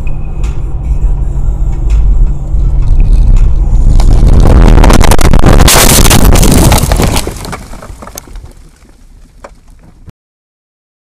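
Car cabin noise at highway speed on a snowy road, then about four seconds in a violent crash: a loud roar of scraping, crunching and repeated impacts lasting about three seconds, which dies away and then cuts off abruptly.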